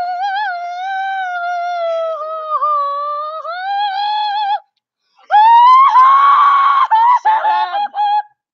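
A child's long, high wail held on one wavering pitch, then after a short break a louder rising scream that turns harsh in the middle: crying out at the sourness of a sour candy spray.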